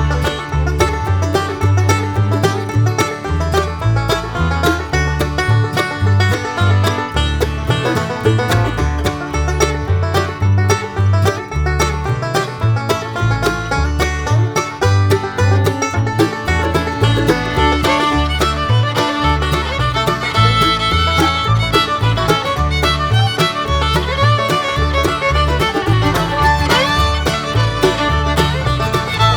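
Instrumental background music with a steady, driving beat.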